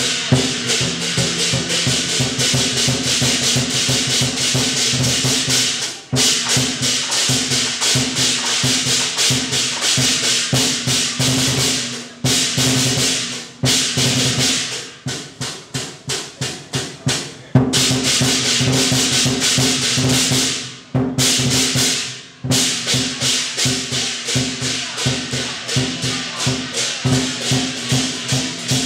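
Chinese temple ritual percussion: drums with gongs and cymbals beaten in a fast, steady rhythm, breaking off briefly a few times and softening for a few seconds about halfway through.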